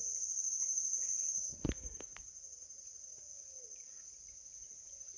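Steady high-pitched insect chorus trilling, which drops in level about a second and a half in, with a single sharp thump just after.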